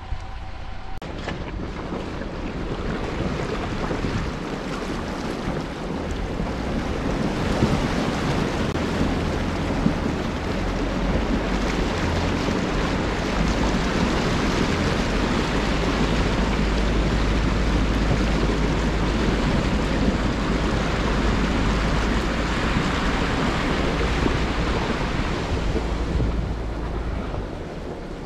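Jeep Gladiator driving a dirt trail: a steady rushing noise of wind and tyres that builds over the first several seconds, with a low hum underneath.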